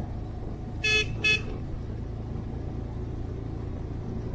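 Two short toots of a vehicle horn about a second in, over the steady low rumble of the motorcycle riding and the wind.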